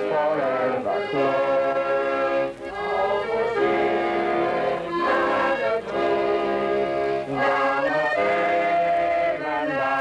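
Piano accordion playing slow, held chords that change about once a second, with voices singing along.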